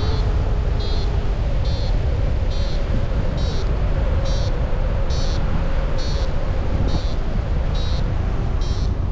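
A high electronic beep repeating evenly, about once every 0.8 seconds, over steady wind noise on the microphone.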